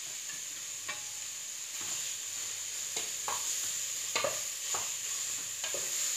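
Ground beef, onion and garlic sizzling in oil in an aluminium pot, a steady hiss, while a wooden spoon stirs and scrapes the bottom of the pot about once a second from about a second in.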